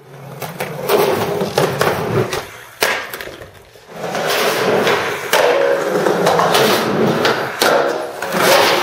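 Skateboard on concrete: urethane wheels rolling with a continuous rumble and sharp wooden knocks of the deck and tail hitting the ground, easing off briefly around three seconds in before picking up again.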